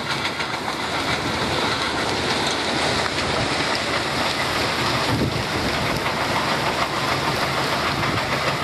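Stone-crushing plant running: the crusher and its conveyor belts make a steady, dense clatter and rumble as crushed gravel pours onto the piles.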